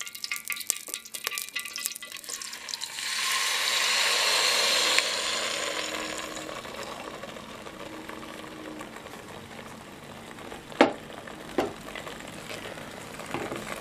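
Rice-flour batter poured into a steel pot of hot water and coconut oil on the stove: a loud hiss about three seconds in that eases to a softer, steady hiss as the batter is stirred. A spoon clanks twice against the pot near the end.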